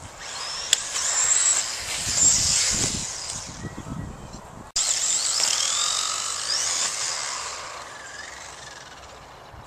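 Electric motor of a Team Associated B4.1 RC buggy, run off a 7.2-volt NiMH pack, whining as it speeds up and slows, with the pitch rising and falling. The sound breaks off abruptly about halfway and starts again.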